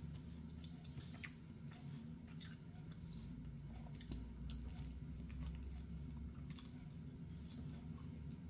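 Mouth sounds of a person biting and chewing pizza crust close to the microphone: soft, scattered crunchy clicks. A low, steady hum runs underneath.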